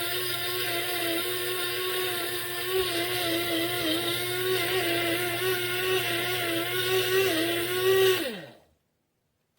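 DR MILLS DM-7441W electric blade grinder running steadily while grinding garlic into powder, its motor whine wavering slightly under the load. About eight seconds in the motor is switched off and winds down with a falling pitch.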